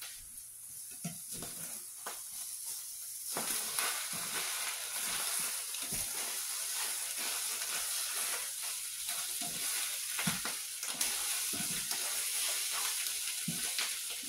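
Scrambled eggs with nopalitos sizzling in a hot frying pan, a plastic slotted spatula stirring and scraping them with scattered light taps. The sizzle starts suddenly about three seconds in.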